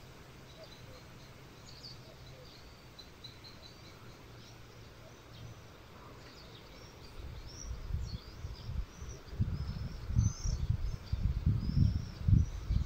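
Small birds chirping with short high calls throughout. From about eight seconds in, an uneven low rumble in gusts, wind buffeting the microphone, grows to be the loudest sound.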